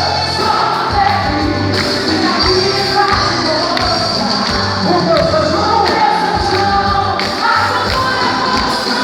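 Loud quadrilha junina music, with a singing voice over drums and accompaniment.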